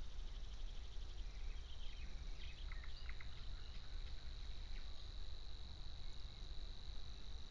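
Reedbed ambience at dusk. A steady, high-pitched buzzing reel sets in about two and a half seconds in and carries on. Scattered short bird chirps come before it and under it, over a faint low rumble.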